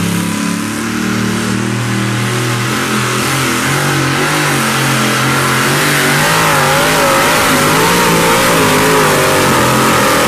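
Supercharged engine of a two-wheel-drive pulling truck running hard under load as it drags a weight-transfer sled. Its pitch wavers up and down in the second half of the run.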